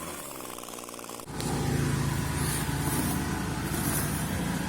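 A small engine running steadily for about a second, then a sudden change to a louder, rough outdoor rumble with brief hissing scrapes now and then.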